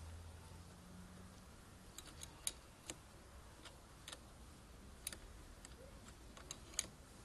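Metal wrench clicking against a car battery's terminal clamp as the clamp is tightened: about ten sharp, irregular clicks.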